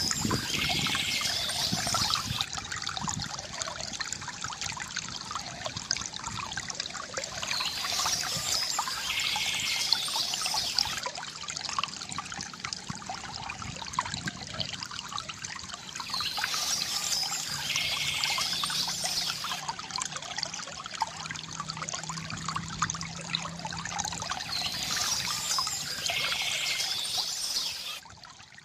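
Stream water trickling and splashing steadily, with a bird singing the same short high phrase about every eight seconds. The sound drops away sharply near the end.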